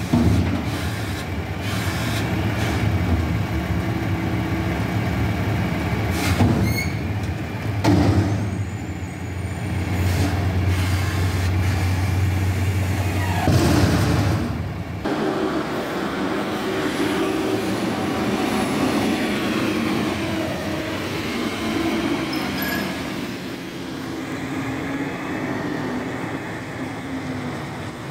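Heil Half Pack Odyssey front-loader garbage truck's diesel engine running at high revs to drive the hydraulics while a dumpster is held up and emptied over the hopper, with a few loud metal bangs as the can is shaken. About halfway through the revs drop and the engine runs lower and quieter as the arms come down.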